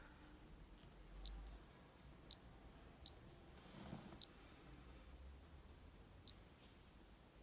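Casio DBW-32 Data Bank digital watch beeping as its mode button is pressed: five short, high beeps at uneven intervals, one for each step through its modes.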